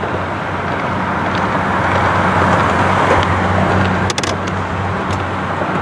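A boat motor running steadily with a low hum, under a continuous rushing noise of wind and water. A sharp click about four seconds in.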